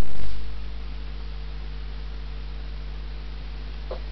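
Steady electrical mains hum with its higher overtones over a hiss. It starts loud and settles within about half a second, and a short blip sounds near the end.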